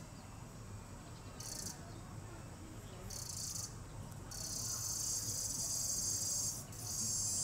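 Insects buzzing high and shrill: three short bursts about a second and a half apart, then a long steady buzz from about four seconds in that breaks off briefly near the end.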